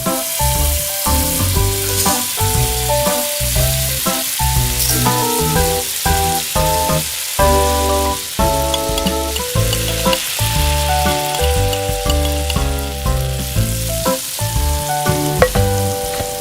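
Miniature food sizzling as it fries, a steady crackling hiss under background music with a melody and bass line.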